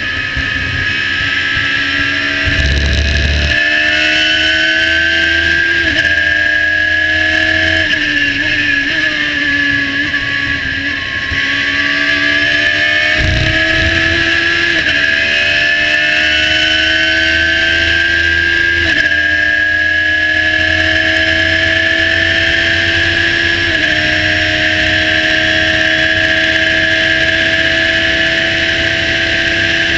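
Radical SR3 1500's motorcycle-derived four-cylinder engine running at high revs under full throttle, heard from the cockpit, its pitch climbing and dropping sharply at each quick upshift. The revs sag briefly for a corner around ten seconds in before climbing again, with a low thump about three seconds in and another around thirteen seconds.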